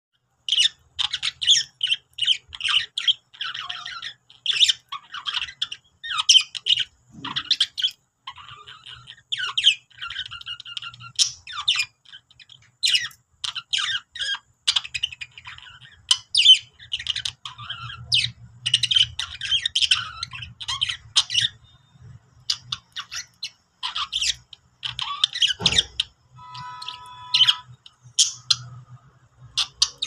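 Budgerigars chattering: a fast, continuous run of short scratchy chirps and squawks, with a brief lull about three quarters of the way through. Near the end come a single low thump and a short steady whistle-like tone.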